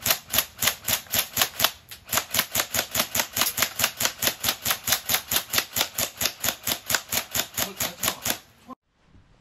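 Airsoft BB gun firing a long string of rapid, evenly spaced shots, about five a second. There is a short break about two seconds in, and the firing stops suddenly near the end.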